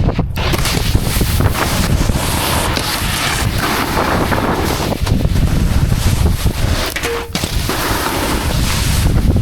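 Wind rushing over a helmet camera's microphone during a snowboard run: a loud, steady rush of noise that dips briefly twice.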